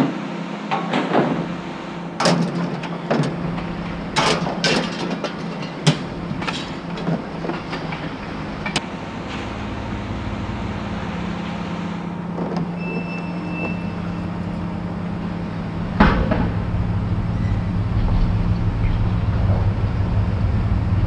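A vehicle engine running steadily, with sharp metallic clanks and rattles through the first half. There is one bang about two-thirds of the way in, after which a low rumble grows louder.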